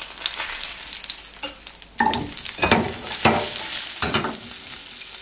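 Hot olive oil sizzling in a frying pan. About two seconds in, asparagus spears go into the oil and the sizzle jumps suddenly louder, with bursts of crackling about a second apart as they fry.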